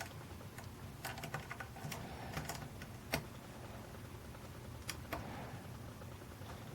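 Faint irregular ticks and scrapes of a small lock pick working the pins of a 6-pin Yale pin-tumbler cabinet lock under tension, with a sharper single click about three seconds in.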